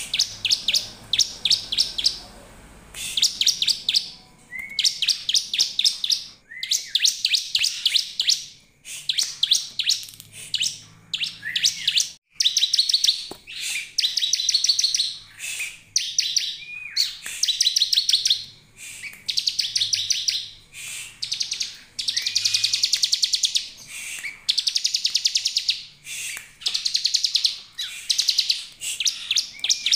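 Bar-winged prinia (ciblek) calling: rapid, high, trilled chattering phrases about a second long, repeated over and over with short gaps. Some phrases open with a brief rising note. It is a ciblek lure call, used to draw other prinias into calling.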